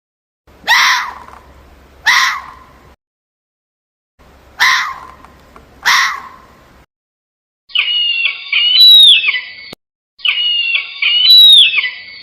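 Animal calls cut together in short clips: two pairs of short, sharp calls, each falling in pitch, then two longer stretches of high, shifting calls with a falling whistle in each.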